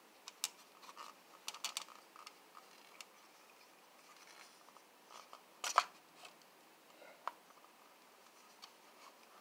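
Light clicks and scrapes of plastic model floodlight tower parts being handled and fitted together, the loudest click a little before six seconds in.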